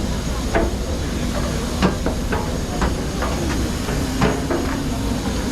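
Airport ramp noise: a steady low rumble with scattered, irregular knocks and clicks, a few each second.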